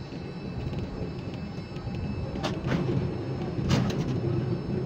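Ship-to-shore quay crane machinery running as the trolley carries a container out from the quay over the ship: a steady low rumble that grows louder, with two sharp knocks, one about two and a half seconds in and another just under four seconds in.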